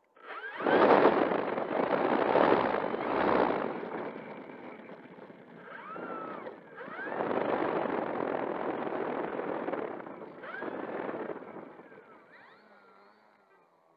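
Electric motor and propeller of an E-flite Air Tractor RC plane, heard from a camera on its nose, throttled up in surges while it taxis. Each surge is a loud rush of propeller wash with a motor whine that rises and falls in pitch. Two strong surges come early, then a longer one from about seven to ten seconds in, before it eases off.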